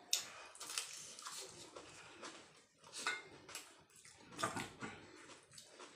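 Close-up eating sounds: irregular chewing and crunching of a fried singara, with a spoon clicking and scraping on a steel plate.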